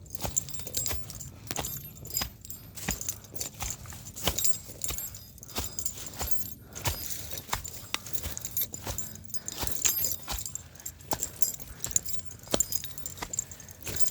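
Irregular jingling and clicking of small loose metal items, with many sharp little ticks throughout.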